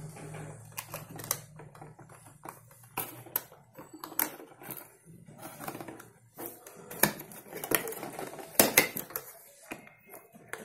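Irregular plastic clicks, taps and scrapes, with cardboard rustling, as a toy RC helicopter is worked loose by hand from its cardboard box insert. There are a few sharper clicks in the second half.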